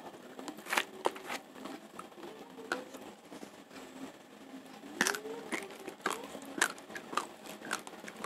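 Raw, uncooked Rojolele rice grains crunching between the teeth, as a run of irregular sharp cracks. The woven plastic rice sack crinkles as grains are scooped from it.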